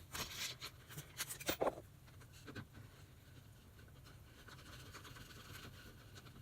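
A few short clicks and scratching rubs as a car door speaker is handled and lined up in the door panel's mounting holes, then only faint background.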